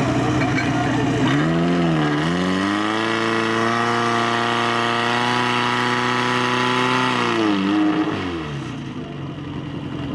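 Fire pump engine revving up from idle about a second in, holding at high revs for several seconds, then dropping back toward idle near the end.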